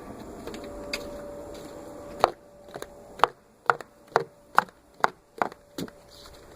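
A run of about ten short, sharp clicks or knocks, roughly two a second, after a faint steady hum.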